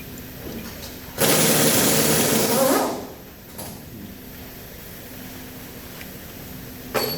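A loud rushing hiss about a second in, lasting under two seconds and then fading, like a blast of air. A couple of short clicks come near the end.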